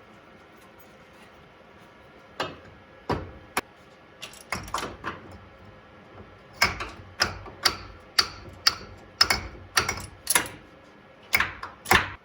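Sharp taps on the stuck front drive axle of a 1992 S10 Blazer 4WD as it is worked loose from the hub. A few spaced taps come first, then a steadier run of about two a second from about six seconds in.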